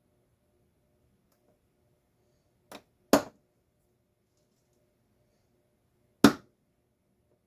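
Sharp knocks from hands-on disassembly of a Stanley garage door opener: a light tap, then a loud knock, then a second loud knock about three seconds later, with a faint steady hum underneath.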